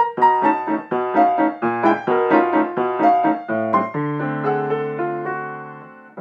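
Yamaha Disklavier grand piano playing four hands, one part from the pianist and the other from the piano's own self-playing mechanism: quick repeated chords, about three a second, then about four seconds in a low held chord that slowly dies away.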